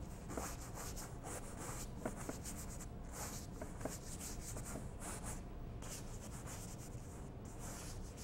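Bristle brush scrubbing oil paint onto a stretched canvas in many short, irregular strokes, a soft dry swishing.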